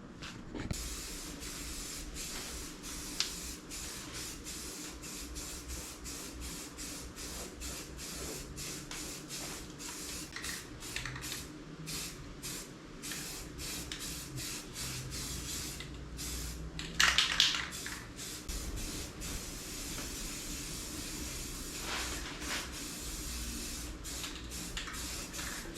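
Aerosol spray can of 2-in-1 primer hissing in repeated passes with brief breaks, laying on a second coat.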